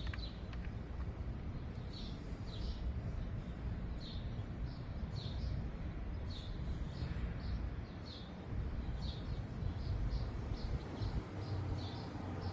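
A small bird chirping over and over, short high chirps coming faster in the second half, over a steady low outdoor rumble.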